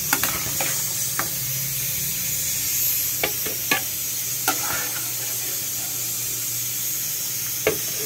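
Boiled tomatillos and onion being spooned from a pot into a blender jar: scattered light knocks and clinks as the spoon and the vegetables hit the jar, over a steady hiss.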